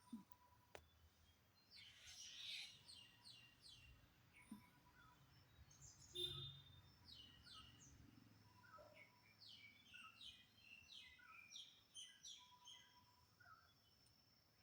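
Faint birdsong: runs of short, quick chirps, each sliding downward in pitch, repeated in a series. There is a brief, louder low bump about six seconds in.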